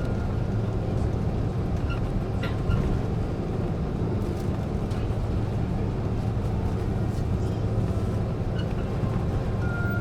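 Steady low rumble of an airliner's cabin, engines and airflow heard from inside the passenger cabin, with a few faint clicks about two and a half seconds in.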